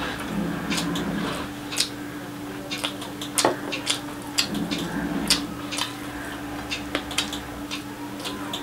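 Close-miked chewing of a mouthful of fried rice, with many sharp, irregular wet mouth clicks and smacks, and fingers mixing rice with curry gravy on a plate, over a faint steady hum.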